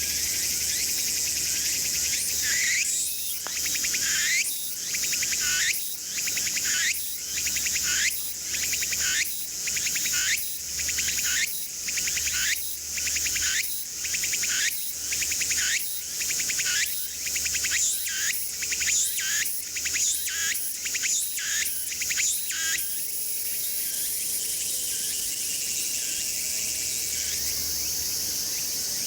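Tsukutsukuboushi cicada (Meimuna opalifera) singing its song of repeated rising phrases, about one a second for some twenty seconds, over a steady high buzz. Near the end the phrases stop and only the steady buzz goes on.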